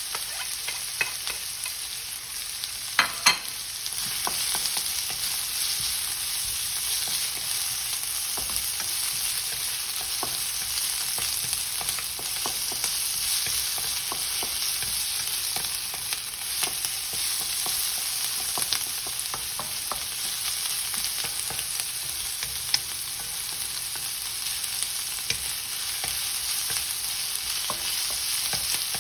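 Garlic, ginger and onion sizzling in hot olive oil, stirred in the pan with a utensil that clicks and scrapes against it. Two sharp knocks about three seconds in.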